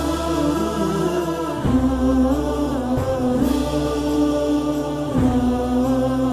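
Wordless chanted vocal backing: a choir holding long notes over a low drone that shifts about every second and a half.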